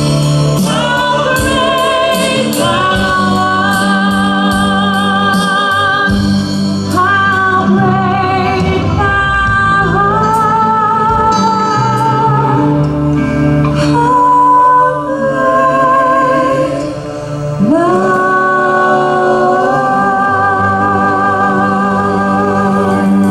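Church praise team singing a gospel worship song with live band accompaniment. Several voices hold notes with vibrato over a steady bass line. A regular high tick keeps time through the first six seconds or so.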